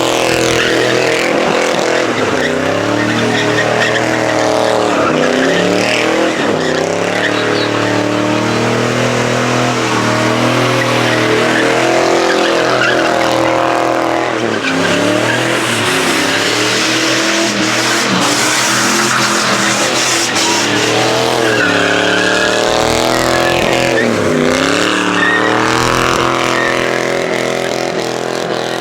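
A vehicle doing a burnout: its engine is held at high revs, rising and falling again and again, while the spinning tyres squeal against the pavement.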